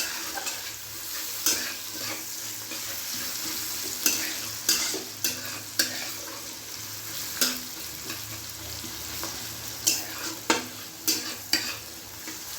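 Sliced onions frying in hot oil in a large kadai, a steady sizzle broken by irregular scrapes and knocks as they are stirred against the pan.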